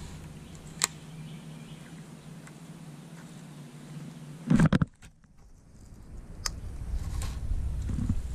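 Handling noise from a baitcasting rod and reel during a cast: a few sharp clicks and a brief loud thump about four and a half seconds in, over a quiet outdoor background.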